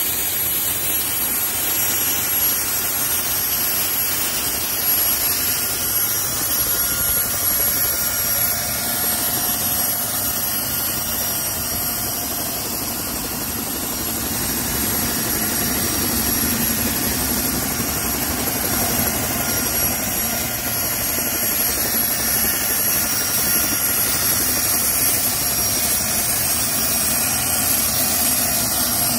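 Solar T62T32 gas turbine of a Dragonfly helicopter running with the rotors turning. It makes a steady high-pitched turbine whine over a broad rushing noise, holding an even level throughout.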